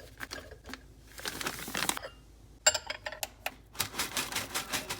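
Kitchen handling sounds from food preparation: scattered sharp clicks and taps, a brief rustle about a second in, and a quick run of taps near the end.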